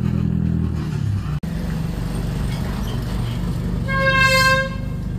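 A vehicle engine running steadily in the street, with one short horn toot of about a second near the end.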